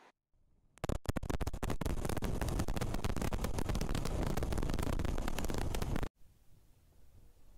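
Rough, crackling scratching noise on a motorcycle vlogger's microphone, typical of wind buffeting or the mic rubbing while riding. It starts about a second in and cuts off suddenly near the end, leaving near silence.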